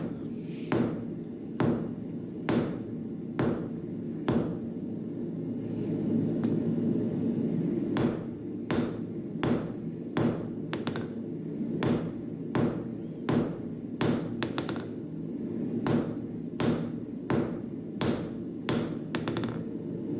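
Hand hammer striking hot steel on an anvil while forging a small square punch: runs of about five blows, a little over one a second, each leaving a short high ring, with a pause of a few seconds early on. A steady low rumble runs underneath.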